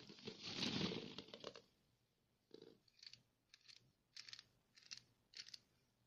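Hollow plastic ball-pit balls rustling and knocking together as hands push them aside, followed by about six short, scratchy clicking bursts, roughly two a second.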